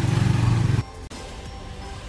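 Small motorcycle engine running steadily, cut off abruptly just under a second in. Background music follows.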